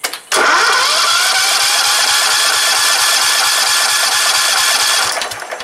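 A 16 hp Kohler engine is spun by its electric starter, with the spark plug out and a compression gauge in the plug hole, for about five seconds. The starter whines up to speed just after the start, runs with a regular beat of compression strokes, then stops. This is a wet compression test, and the gauge reads about 76 psi.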